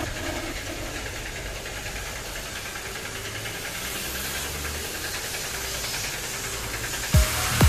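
A motor humming steadily, with the hiss of water spraying from a hose nozzle onto a car. Near the end, background music with heavy thudding beats comes back in.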